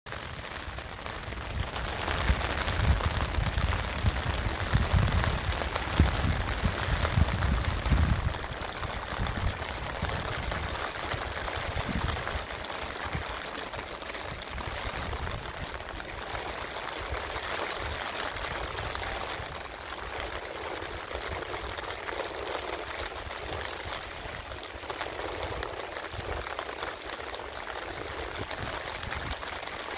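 Steady rain falling on water and wet paving, an even hiss. Low gusty rumbling is strongest for the first several seconds, then it settles into a steadier, quieter rain hiss.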